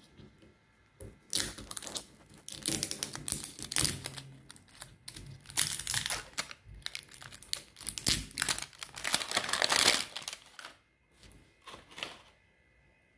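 Printed plastic wrapper crinkling and tearing as it is peeled off a L.O.L. Surprise ball, in irregular bursts with a short lull near the end.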